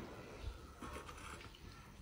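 Faint eating sounds: chewing a mouthful of mala hotpot, with a plastic spoon scraping in the bowl.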